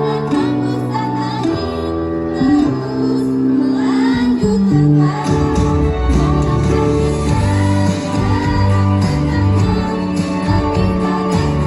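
A school choir singing held notes over a musical accompaniment, which grows fuller about four and a half seconds in.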